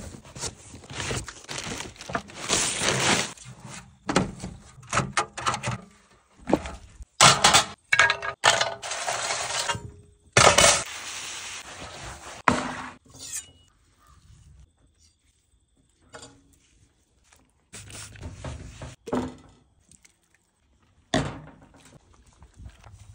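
A run of handling noises while a portable grill is unpacked and prepared: rustling of cardboard and paper and knocks and clatter of hard parts, busiest in the first half, then sparser, quieter handling.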